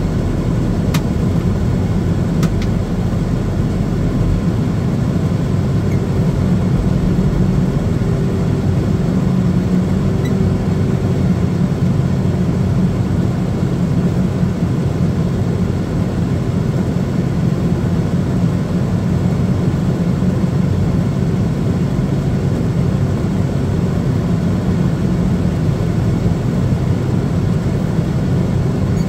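Towbarless aircraft tug's engine running steadily under load as it moves a Boeing 787-10 held by the nosewheel, heard from inside the tug's cab.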